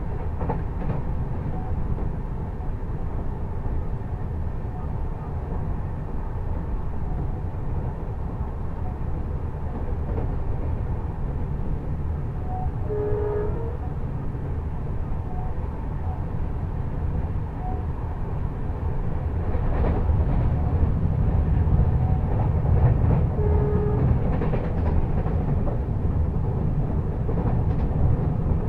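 Duronto Express passenger train running at speed, heard from aboard a coach: a steady low rumble of wheels on rail that grows louder about two-thirds of the way through, with a few sharp clacks. Two short tones sound about ten seconds apart.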